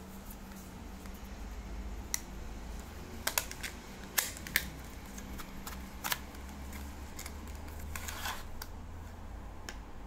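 Cardboard box and clear plastic blister pack being handled: the box flap is opened and the pack slid out, giving a scattering of sharp clicks and taps, the loudest around four seconds in, over a low steady hum.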